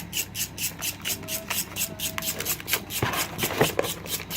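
Quick, even back-and-forth scrubbing strokes, about four a second, with a few sharp clicks near the end.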